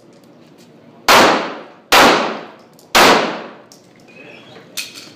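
Handgun fired three times, just under a second apart, each shot ringing out with a long fading echo.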